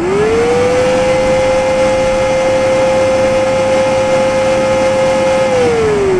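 A motor-like whine that spins up quickly, holds one steady pitch, then begins to wind down near the end.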